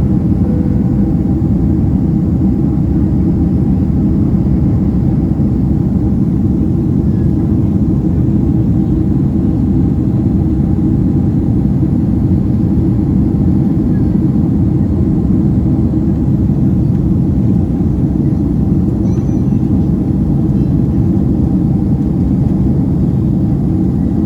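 Steady, loud low rumble of engine and airflow noise inside the passenger cabin of a Boeing 767-300ER, with no change in pitch or level.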